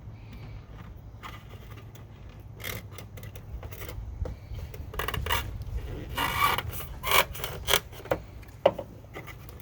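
Jeep Patriot's plastic tail-light housing scraping and rubbing as it is wiggled into its seat, with several sharp plastic clicks and knocks in the second half.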